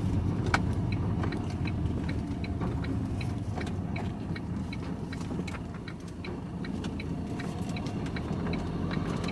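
Vehicle engine running with a steady low rumble heard from inside the cab, and the turn-signal indicator ticking evenly, about two ticks a second.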